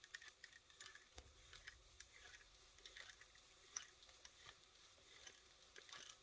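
Faint, irregular metallic clinks and clicks of small tool parts being handled: the bolts, nut and aluminium block of a supercharger pulley puller.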